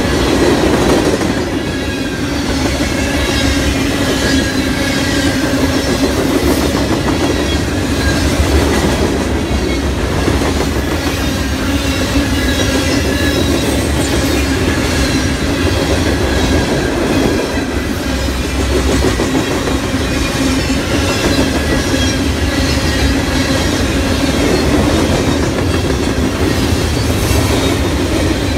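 Freight train's cars rolling past at trackside: a steady, loud rumble of steel wheels on rail with clickety-clack over the joints.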